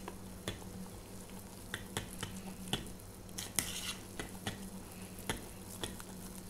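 Metal utensil stirring flour into apple pancake batter in a plastic bowl: irregular light taps and scrapes against the bowl, over a faint steady low hum.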